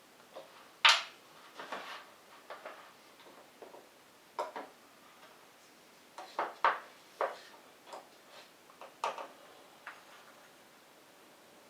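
Irregular clicks and knocks of small hard objects being handled, about a dozen in all, the loudest about a second in.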